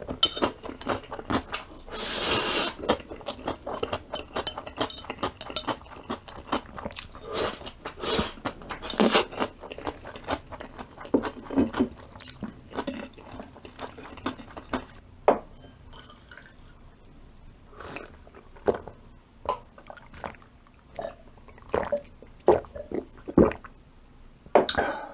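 Close-up eating sounds of a person chewing spaghetti noodles: wet smacking and squishing mouth noises with short clicks. They come thick and fast at first and thin out to separate smacks in the second half.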